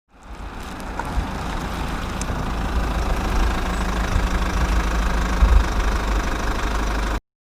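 An engine running steadily with a deep rumble. It fades in over about the first second and cuts off abruptly near the end.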